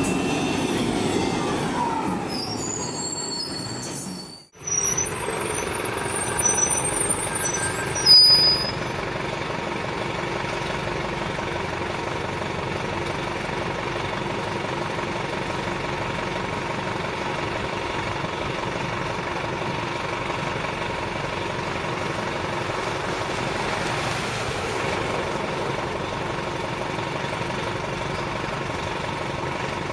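RTS transit bus engines: at first a bus runs as it pulls away, then, after a short break, a bus idles with a steady diesel hum. Brief high-pitched brake squeals come about six to eight seconds in, the loudest one near eight seconds.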